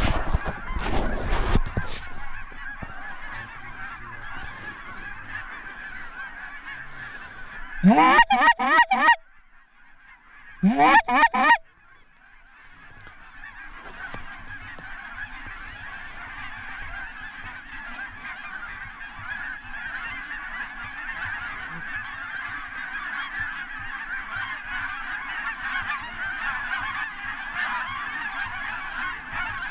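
A large flock of geese honking en masse, the calling growing louder toward the end. Two short, loud bursts of close honking come about eight and eleven seconds in.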